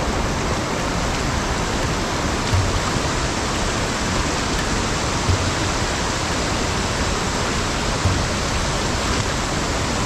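Fast, muddy monsoon stream rushing in full flow: a steady, even hiss of water. A few soft low thumps come through, about three seconds apart.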